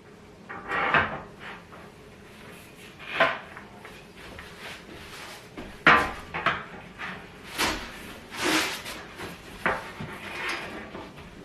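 Irregular knocks, clunks and scrapes of furniture parts being handled and set down during assembly, about seven separate sounds.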